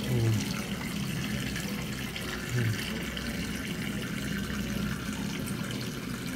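Water running steadily into a metal basin holding snakehead fish, with two short low bumps as the fish are shifted in the water.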